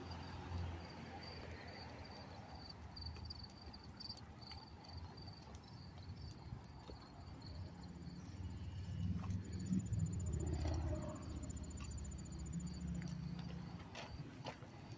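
Street ambience while walking on a concrete sidewalk: footsteps, a low rumble that swells and peaks about ten seconds in, and a faint steady high whine throughout.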